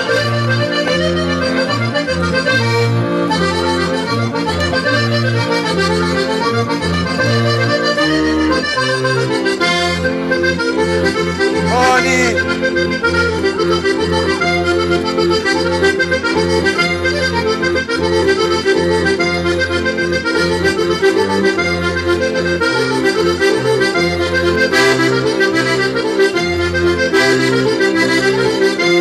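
Accordion playing a lively traditional Sardinian dance tune for a ballo sardo, with held chords over a steady pulsing bass.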